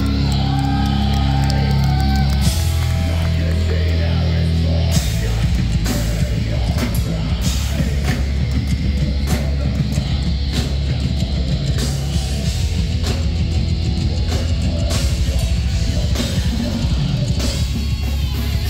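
Metal band playing live: distorted electric guitars, bass guitar and drum kit. Held low chords for the first couple of seconds, then from about five seconds in a fast riff over rapid drumming.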